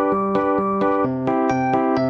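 Background music: a bouncy electric-piano tune with a steady bass beat, about four notes a second.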